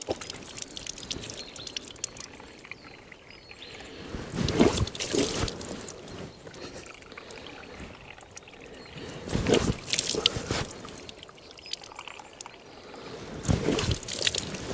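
Water running from a spring-fed trough spout, a steady trickle that swells louder three times, about a third of the way in, near the middle and near the end.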